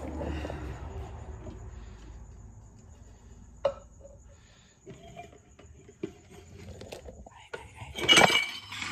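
A ceramic cup and kitchenware being handled: a sharp click a little over three and a half seconds in, a few soft knocks, then a louder clatter with a ringing clink near the end.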